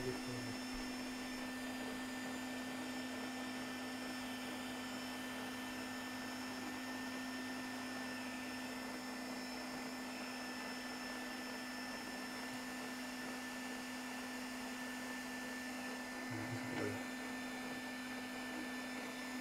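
Steady electrical hum of the powered-up bottle-to-filament machine, one low tone with faint thin high whines above it. A brief soft knock from handling the parts sounds near the end.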